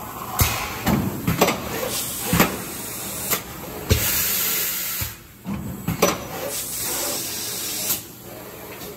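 Plastic lid thermoforming machine running: a series of sharp metallic clacks from its moving forming and cutting parts, with long loud hisses of air about four seconds in and again from about six to eight seconds.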